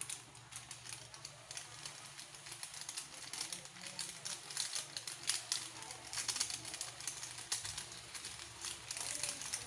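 Pork steaks simmering in sauce in a frying pan: a steady crackle of small bubbling and spitting clicks, with a low hum underneath.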